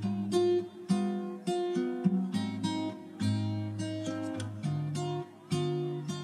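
Background music: an acoustic guitar picking single notes at a gentle pace, about two a second, over low bass notes.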